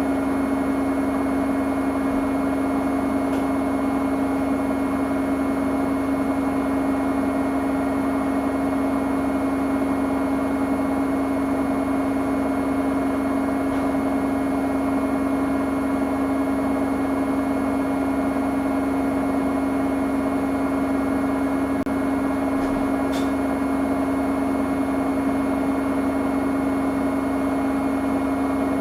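Samsung front-loading washing machine running on its cotton cycle: a steady motor hum with a constant whine. It holds an even pitch and level throughout, with no pauses or changes of direction.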